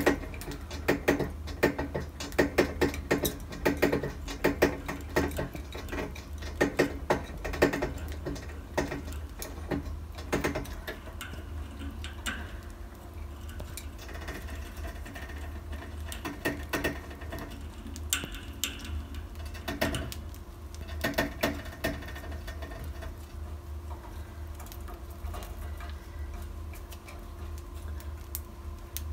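Budgerigars moving about their cage: rapid clicks and taps from beaks and claws on the cage, busiest in the first ten seconds and again briefly later, over a steady low hum.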